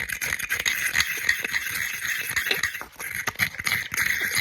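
Small wire battery-post cleaning brush scrubbing rapidly against the engine block, a continuous scratching with quick metallic clicks, easing briefly about three seconds in.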